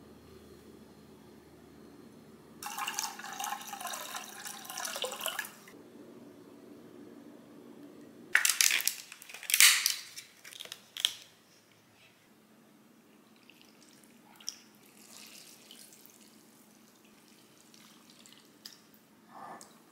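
Liquid poured into a container for about three seconds, then several sharp splashes and clicks while gelatin leaves are pushed down into a plastic cup of cold water.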